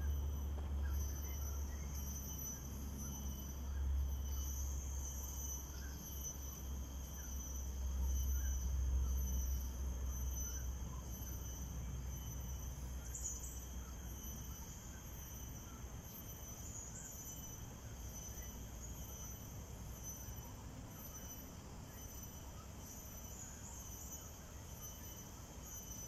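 Steady, high-pitched chorus of insects calling without a break, over a low rumble that is strongest in the first ten seconds and then eases.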